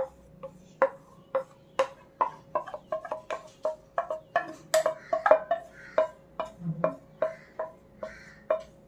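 Wooden spatula knocking against a metal frying pan about two to three times a second as a thick batter is stirred, each knock with a short ring from the pan. A faint steady hum runs underneath.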